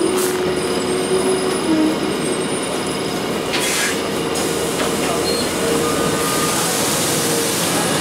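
Cabin noise aboard a 2002 Blue Bird CS transit bus on the move: its Cummins ISC diesel and Allison B400R transmission running steadily, with a faint whine that wavers in pitch. A short hiss comes about three and a half seconds in.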